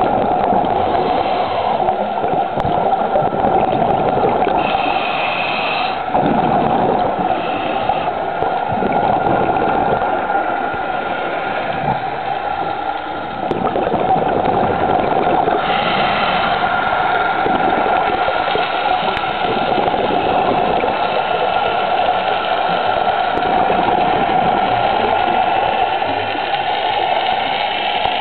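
Underwater sound recorded on a scuba dive: a steady hum and rush of water, with brief bubbling and gurgling now and then from scuba divers' air bubbles.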